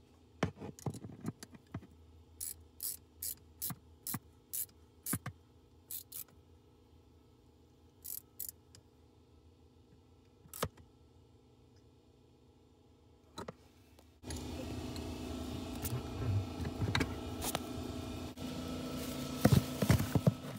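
Adjustable wrench clinking and scraping on a brass fitting as the nipple and air-line fitting are loosened from a sprinkler line, a string of sharp metal clicks. About fourteen seconds in, a louder steady hum starts, with rustling and a few knocks.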